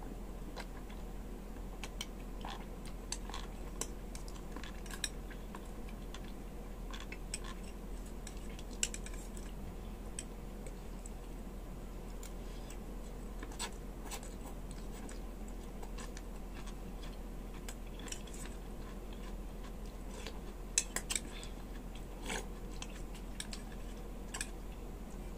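A metal spoon clicking now and then against a stainless steel bowl, with chewing of soup and vegetables in between, over a steady low hum. A few sharper clinks come near the end.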